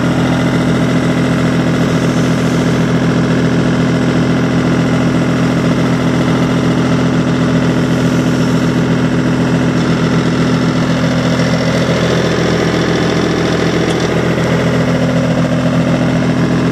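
2002 New Holland TN55 tractor's diesel engine idling steadily.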